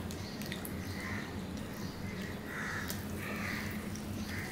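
Crows cawing about four times in the background, over a steady low hum. Fingers mixing rice on a steel plate make small scattered clicks.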